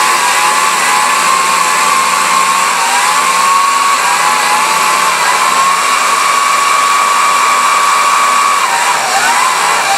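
Electric drive motor of a high-powered mobility scooter whining at a steady high pitch as its rear tyre spins in a smoky burnout, over a hiss of tyre noise. Near the end the whine dips in pitch and wavers.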